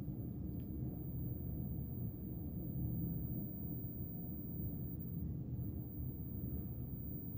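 Steady low background hum of the room, with no distinct events.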